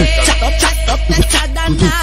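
Brazilian funk (funk carioca) track in a gap between vocal lines: a long held deep bass note under the beat's percussion hits.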